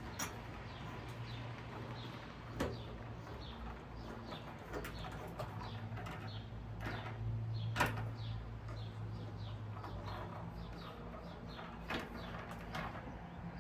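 Small birds chirping over and over in short, high, falling notes, with a low steady hum underneath and a few sharp knocks from hardware being handled, the loudest about eight seconds in.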